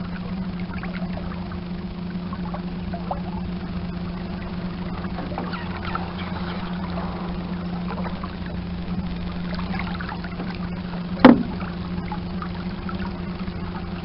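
Electric trolling motor running steadily with a constant hum, water trickling and lapping along the hull. There is a single loud knock about eleven seconds in.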